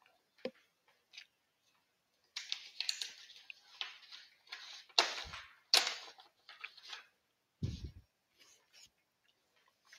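Faint scattered clicks and short rustling noises, with two sharper clicks about five and six seconds in and a brief low thump near the end.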